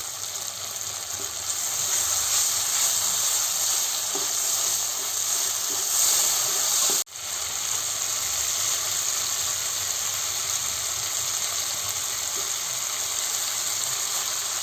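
Vegetables sizzling in hot oil in a ceramic pan over a high flame: a steady frying hiss. It breaks off sharply for an instant about seven seconds in, then carries on.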